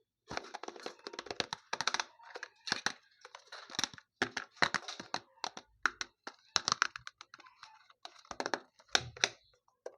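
Packaging being opened by hand: a dense run of sharp crackles, clicks and tearing snaps, coming in bursts with short pauses between them.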